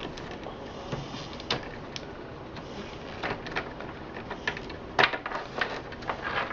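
Scattered clicks and small knocks of cables and plastic connectors being worked loose from hard drives inside a desktop PC case. The loudest knock comes about five seconds in.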